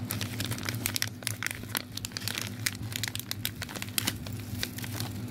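Foil blind-bag and plastic packaging crinkling as it is handled: a dense run of small crackles over a low steady hum.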